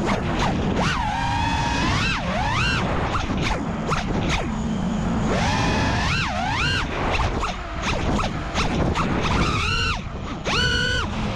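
FPV racing quadcopter's brushless motors and propellers whining, the pitch sweeping sharply up and down three times as the throttle is punched through rolls and flips, over rough, crackling wind and frame noise.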